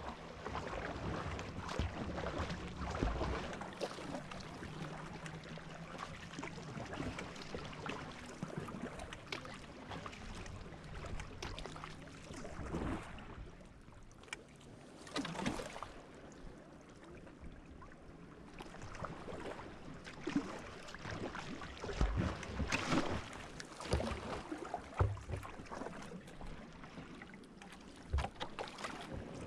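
Kayak paddle strokes splashing and water sloshing against a sea kayak's hull in irregular bursts.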